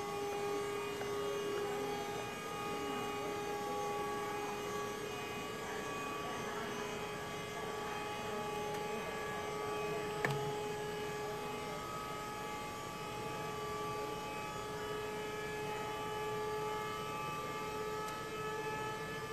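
Steady electric hum with several held tones from an aerial work lift's motor as the platform moves, with a single sharp click about ten seconds in.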